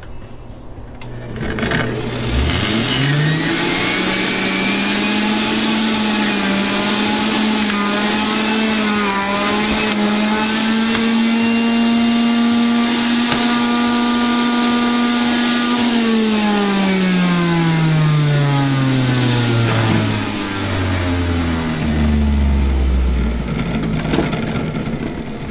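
Electric centrifugal juicer running as ginger is pushed through it. The motor spins up about two seconds in to a steady whine, dips briefly in pitch partway through, then winds down with a slowly falling whine and a low rumble near the end.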